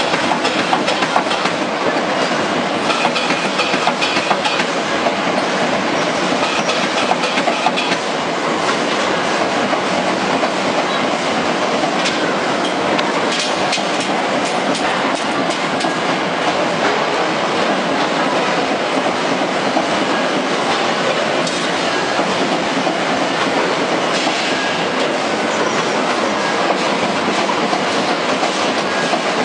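Steady mechanical din of spot welding machines for wire fan guards at work, full of rapid clicks.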